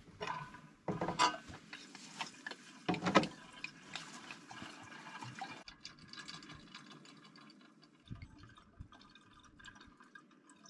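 Drinks poured from bottles into a small insulated drink keg, a steady trickle through the second half. In the first few seconds there are a few sharp knocks and clatters as the bottles are handled against the keg.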